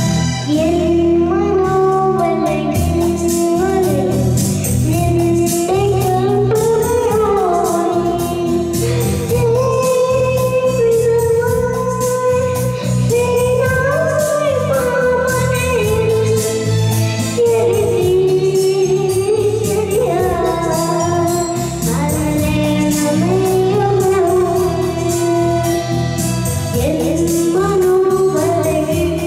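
A young boy singing a Malayalam song into a handheld microphone over instrumental backing music with a steady beat.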